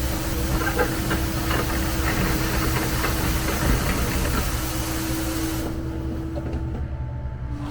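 John Deere 325G skid steer's diesel engine running while a Paladin sweeper brush spins on pavement: a steady hiss of bristles with scattered ticks of grit and debris, over the engine's low drone and a steady tone. About six seconds in, the hiss cuts off abruptly while the engine keeps running.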